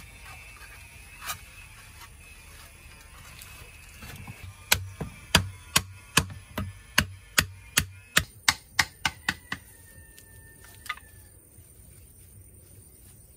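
A run of about fifteen sharp knocks, two to three a second and coming faster toward the end, with a lone knock before and after it.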